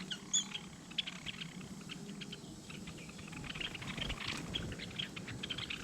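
Small birds at a feeder giving many short chirps and ticks, with a brief higher call in the first half-second.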